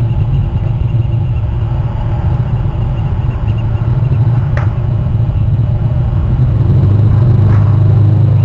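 Loud, steady low rumble, a little louder near the end, with one brief sharp click about four and a half seconds in.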